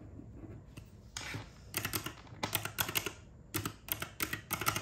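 Round typewriter-style keys of a desktop calculator being pressed, a clicking sound in quick runs that starts about a second in, as a calculation is punched in.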